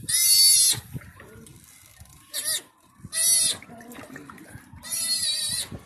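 A young animal giving loud, high-pitched squealing calls, four of them, each under a second long, the second one short.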